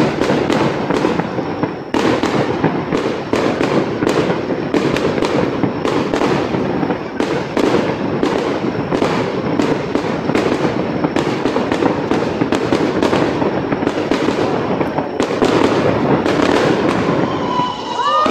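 Aerial fireworks display: shells bursting in quick, irregular succession, a dense run of loud bangs and crackles.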